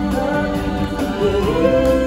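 Stage-show music with singing, played loud over the theatre's sound system.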